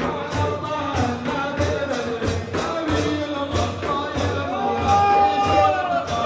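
Zikir chanting: voices singing over a steady drumbeat, with one long held note about five seconds in.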